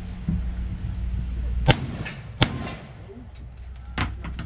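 Two rifle shots fired at steel targets, about three-quarters of a second apart, the second the loudest. A smaller sharp knock follows near the end.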